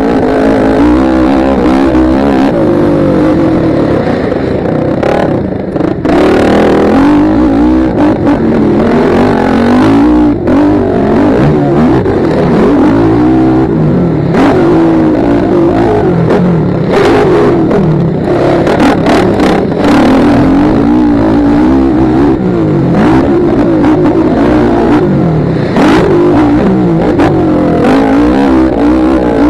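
Motocross bike engine heard from the rider's helmet, revving hard and dropping again and again as it accelerates, shifts and slows through the track. Scattered short sharp knocks and clatter are heard, several close together about two-thirds of the way through.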